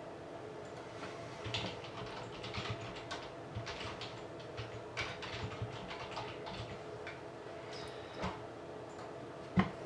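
Scattered typing and clicks on a computer keyboard over a steady hum, with a single thump near the end.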